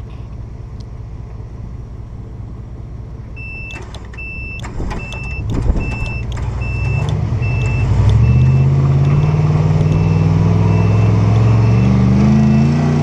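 Pickup truck engine idling, then a few clicks and a door shutting, and a vehicle warning chime starts beeping about one and a half times a second. From about eight seconds in the engine revs up and holds high while the stuck truck works its way out of the mud.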